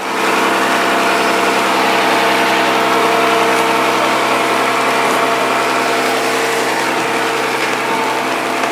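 An engine running steadily at idle, with a loud, even rushing noise over it.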